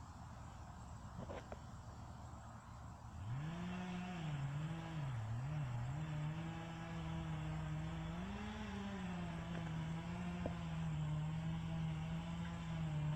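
Chainsaw engine revving up about three seconds in, its pitch dipping and rising a few times before holding steady at high revs.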